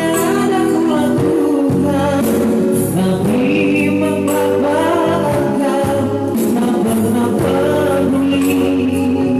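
Singing with instrumental accompaniment: a vocal line with long, wavering held notes over steady backing chords and light percussion.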